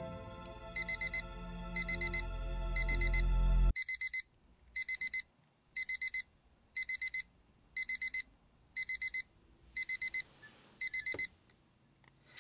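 Electronic alarm clock beeping in quick groups of four, about one group a second, and stopping near the end. For the first few seconds it sounds over soft music whose low note swells and then cuts off suddenly.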